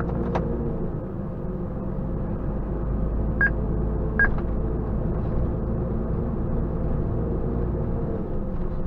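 Volvo FM400 truck heard from inside the cab while driving: a steady low engine and road drone. Two short beeps come about three and a half and four seconds in.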